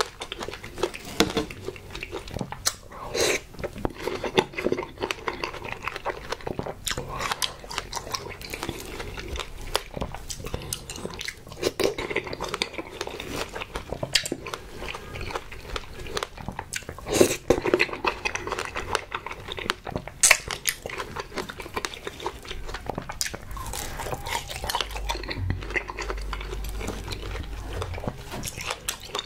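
Close-up eating sounds: chewing and biting strawberries with whipped cream, with a metal fork clicking and scraping on the tray as each strawberry is speared. A few sharper clicks stand out among the steady crackle of chewing.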